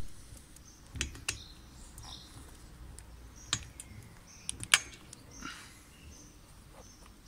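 Scattered small clicks and knocks of hand work on a BMX seat and seatpost, as the seat is undone with a 6 mm Allen key.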